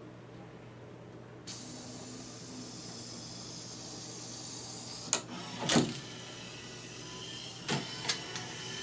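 Pioneer CLD-M301 LaserDisc player's laser carriage mechanism whirring from about a second and a half in, with four sharp knocks in the second half as the carriage hits the end stop of its travel. This is a fault: the carriage keeps ramming the end of its track when switching to side two instead of the disc spinning up, which the owner suspects comes from a bad capacitor.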